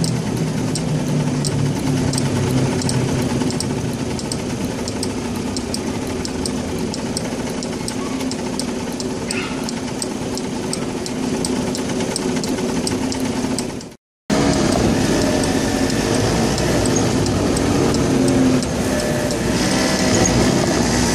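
Small street go-kart engines idling, a steady low hum with a light regular ticking about twice a second. After a short dropout the engines run on and grow fuller near the end as the karts move out.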